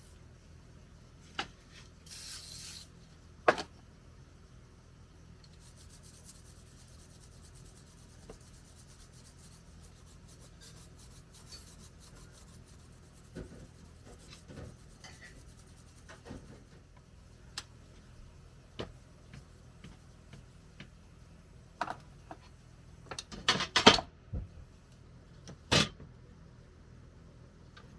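Workshop handling sounds while a bicycle is worked on: scattered knocks and clicks of parts and tools, stretches of faint rubbing, and a quick cluster of louder knocks near the end.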